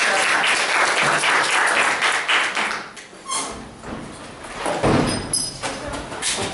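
Audience applauding, the clapping dying away about three seconds in, followed by a few dull thumps and knocks.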